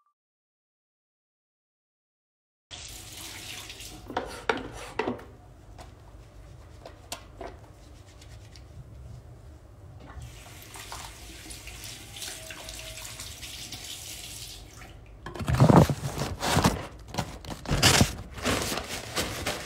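Water running from a tap into a sink, a steady rushing hiss that starts a few seconds in. For the last few seconds there are loud, irregular knocks and rubbing as the phone is handled close to its microphone.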